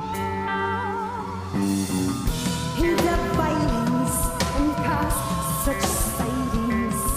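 Rock band playing live with a high female voice singing. About a second and a half in the full band comes in louder, with drums and cymbals.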